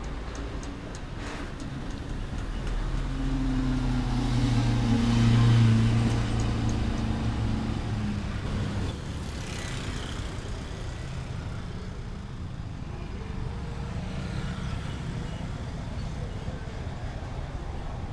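Road traffic crossing close by. A heavy truck's engine grows louder and passes about five seconds in, its note dropping slightly as it goes by. Motorcycles and cars follow with a steadier traffic noise.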